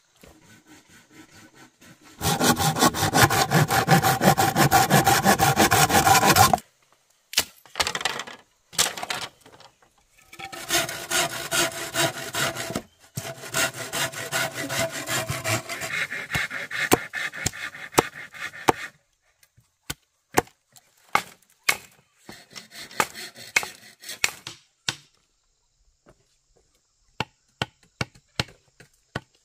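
Wood being sawn by hand in two long spells of rasping strokes, with short bursts between them, followed by scattered sharp knocks and taps.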